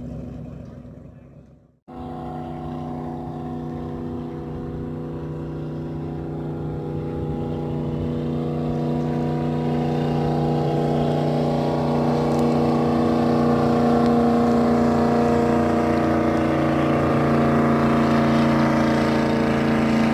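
Jet boat speeding along the river, its engine a steady drone that grows louder over the first half and then holds. About two seconds in, the sound drops away and cuts in again at an edit.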